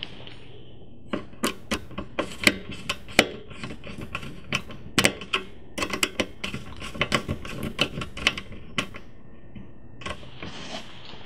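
Screwdriver tightening the screws of a CCTV power box's screw terminal block: a run of sharp, irregular clicks, several a second, as the blade catches and turns in the screw heads. It starts about a second in and stops about two seconds before the end.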